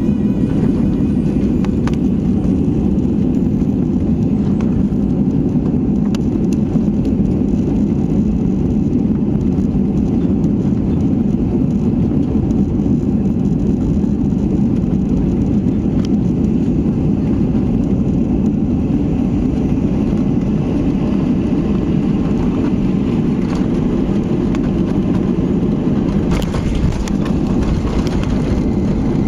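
Steady cabin noise inside a Boeing 737-800 airliner: an even, deep rumble of engines and airflow that holds level throughout.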